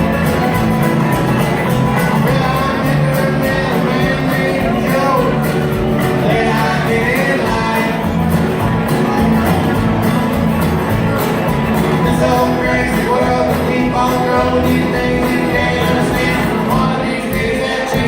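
A band playing a loud rock song, with singing over it.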